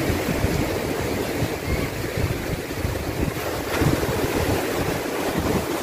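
Sea waves surging and foaming over rocks along the shore, with wind buffeting the microphone.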